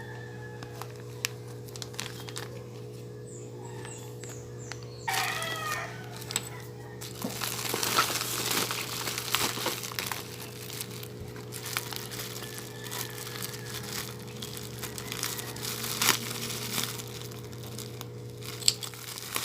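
Packaging crinkling and rustling with small clicks as a parcel of hair claw clips is unboxed. A rooster crows once in the background about five seconds in, over a steady low hum.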